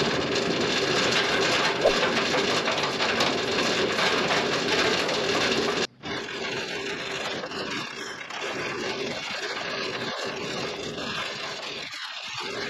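Steel anchor chain clattering and scraping as it is hauled down hand over hand and piles up, louder for the first six seconds, with a brief break about six seconds in.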